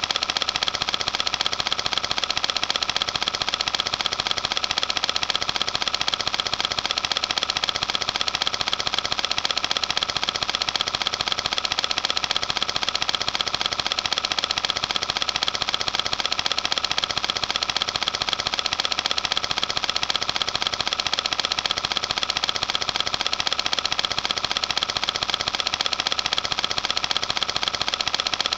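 Film projector running: the steady, rapid mechanical clatter of its film-advance mechanism, even and unchanging throughout.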